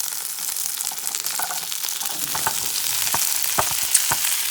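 Onions and diced tomatoes frying in butter in a pan on an Aga, a steady sizzle. Several sharp knocks come in the second half.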